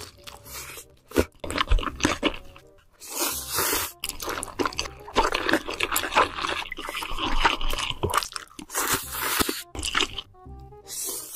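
Close-miked eating: spicy noodles slurped in a run of loud, wet bursts, with a couple of sharp clicks in the first two seconds. Quiet background music plays underneath.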